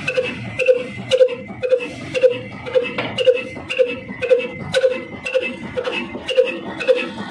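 Pakistani-made Ruston-type single-cylinder horizontal diesel engine running steadily at slow speed, with an even beat of about two puffs a second and sharp clicks from its valve gear.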